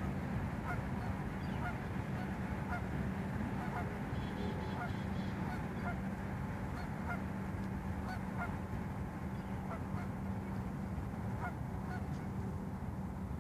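Geese honking, many short calls scattered throughout, over a steady low rumble.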